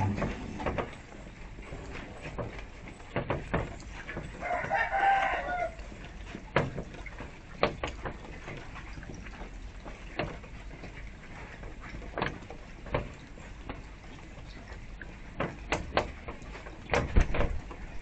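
Steady trickle of a garden fountain, with scattered sharp taps of doves pecking seed from a feeder tray. Around five seconds in, a single bird call lasting about a second and a half sounds over it.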